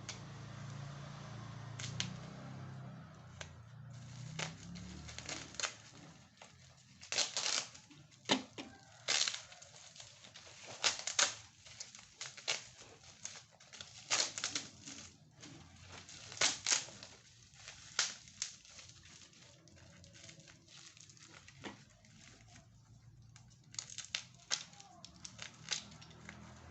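Irregular crinkling and rustling with sharp clicks: the parts and plastic wrapping of a bicycle child seat being handled during fitting.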